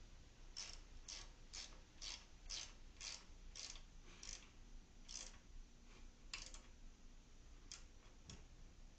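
Ratchet wrench tightening a bolt: short ratcheting strokes about two a second, then a few slower strokes near the end as the bolt snugs down.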